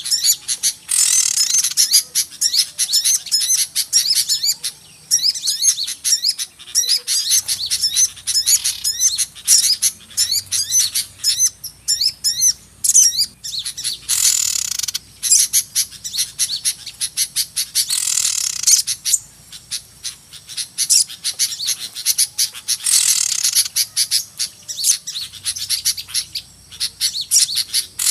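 A dense, noisy chorus of many small birds chirping and twittering rapidly, swelling into louder, busier bursts of calling about every four or five seconds. It is a lure recording of agitated small birds used to draw in small birds for catching.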